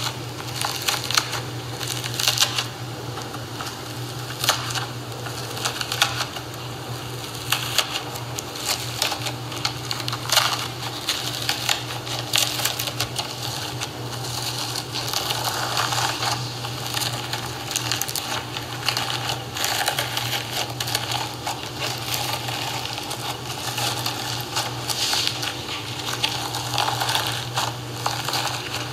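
Dried crust of iceberg slime (shaving-foam slime) being pressed and broken, crunching and crackling in many small irregular clicks, over a steady low hum.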